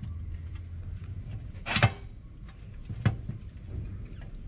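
Metal parts knocking as a motorcycle swing arm is lined up with the frame and its pivot shaft pushed back in: a sharp knock a little under two seconds in and a lighter one about a second later.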